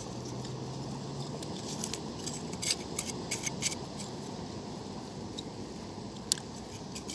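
Scattered sharp clicks and clinks of beach pebbles and clam shells knocking together as someone digs through the stones by hand, a small cluster a few seconds in and one more near the end, over steady background noise.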